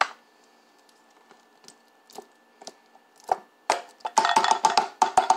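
Nearly empty barbecue sauce bottle being tapped and shaken upside down over a bowl to get out the last sauce stuck to its sides. A sharp click at the start and a few scattered knocks, then rapid knocking several times a second from about four seconds in.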